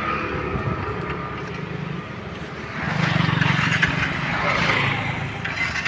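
Motorcycle engine running with a steady low pulse, getting louder about three seconds in.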